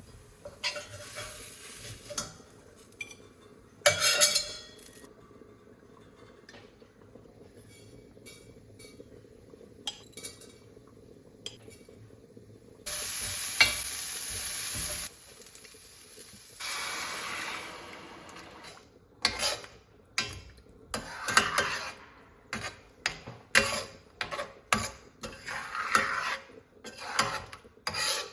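Kitchen cooking sounds: utensils clinking and knocking against pots, a steady hiss for about two seconds near the middle, then a spoon scraping and clinking quickly round a pot as the food is stirred.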